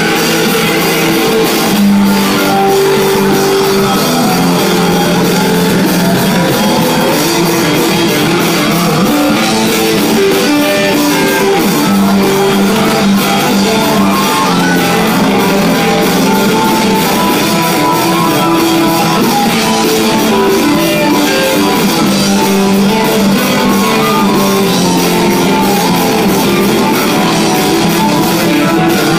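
Live rock music played loud: guitar with a drum kit, continuing without a break.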